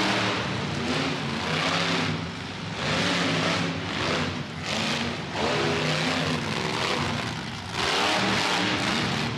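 Monster truck engine revved hard in repeated surges, rising and falling in pitch about every two and a half seconds.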